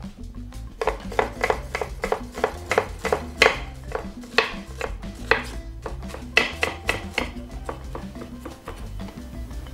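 Kitchen knife chopping red onion on a wooden cutting board: a quick, uneven run of sharp knocks, a few each second, thinning out near the end. Background music plays underneath.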